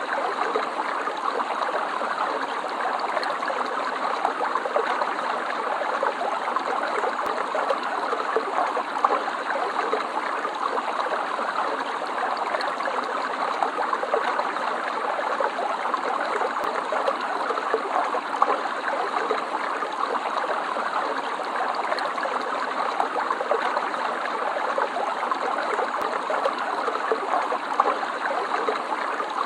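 Stream water flowing steadily over stones, a constant rushing and babbling with small splashy peaks.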